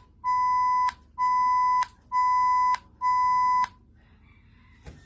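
Morse code beeps sounding the digit zero as long dashes: a steady, even tone in blocks of about two-thirds of a second with short gaps, the end of one dash and then four more. The beeps stop a little after halfway.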